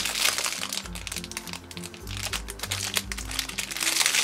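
Clear plastic bag crinkling as a homemade squishy inside it is squeezed and turned in the hands, loudest near the start and again near the end, over background music with steady bass notes.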